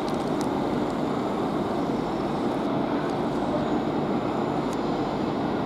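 Class 350 electric multiple unit standing at the platform, its on-board equipment giving a steady hum and rumble that does not change in level.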